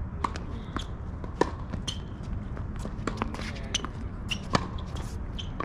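Tennis balls being struck by rackets and bouncing on a hard court: sharp knocks at irregular intervals, the loudest about a second and a half and four and a half seconds in. A steady low rumble of wind on the microphone lies underneath.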